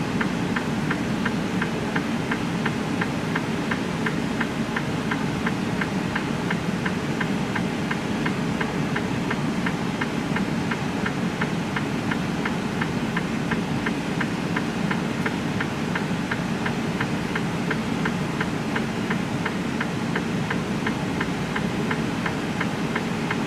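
Semi truck's diesel engine idling steadily, heard from inside the cab, with a regular light ticking running through it.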